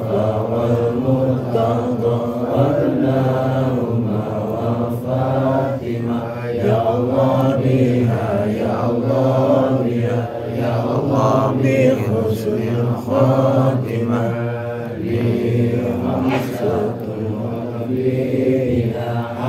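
A group of men chanting Arabic dhikr together in unison, a continuous recitation without pause.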